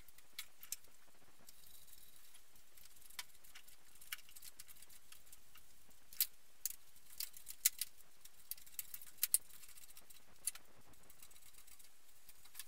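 Faint, scattered metallic clicks and clinks of hand tools and engine parts being handled while a car's engine is unbolted and hoisted out, with a cluster of them after about six seconds.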